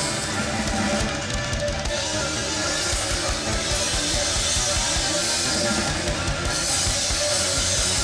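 Live rock band playing an instrumental passage, with the drum kit's bass drum and cymbals to the fore.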